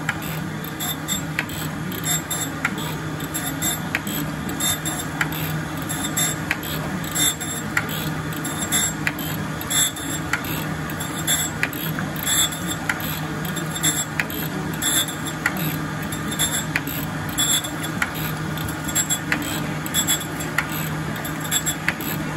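Jones & Shipman Model 1400 surface grinder running, its wheel grinding steel discs under flood coolant as the table reciprocates: a steady machine hum under coolant splashing and a grinding hiss that comes and goes as the parts pass under the wheel, with a regular light ticking about three times every two seconds.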